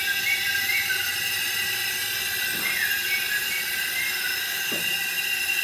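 Vehicle lift lowering a pickup truck: a steady hiss, with short high squeaks now and then and two light knocks.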